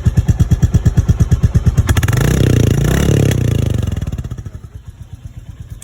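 Royal Enfield Classic 350's single-cylinder engine idling with an even, thumping exhaust beat. About two seconds in it is revved for a little over a second, then drops back to idle and fades near the end.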